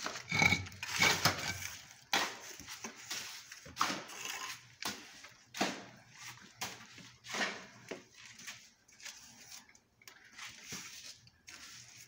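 Mason's steel trowel scraping and slapping wet cement-and-sand mortar as it is spread for laying tiles, with a shovel scraping mortar in a metal wheelbarrow. Irregular scrapes and knocks, loudest in the first couple of seconds.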